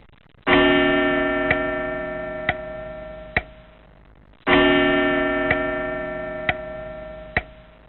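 Clock-like ticking about once a second, with a loud bell-like ringing tone struck about half a second in and again about four seconds in, each fading slowly over the next four seconds.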